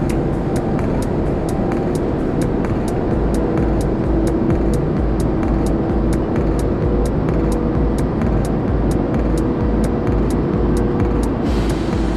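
Background music with a steady beat: a hi-hat ticking about three times a second over a pulsing bass line and held chords.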